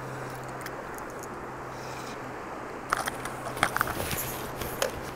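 Steady wash of a flowing creek, with a run of sharp, irregular clicks and ticks starting about three seconds in while a hooked trout is played on a fly rod.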